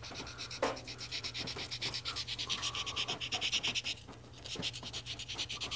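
220-grit sandpaper rubbed by hand over a cork saxophone key riser to round its edges: rapid, even scratchy strokes with a short pause about four seconds in.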